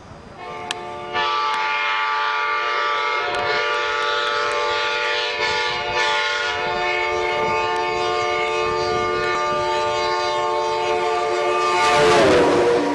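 Passenger train locomotive's air horn sounding one long chord of several notes as the train approaches, starting about half a second in. Near the end the chord drops in pitch as the locomotive passes close by, and the rush of the train swells.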